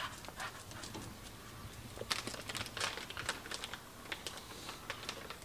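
Dogs' claws clicking on a concrete shop floor as they walk about, in light, irregular ticks.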